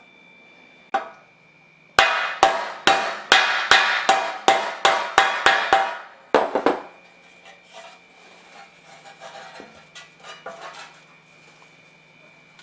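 Hammer blows: a single strike, then a fast, even run of about a dozen strikes at two to three a second, then lighter taps and clicks.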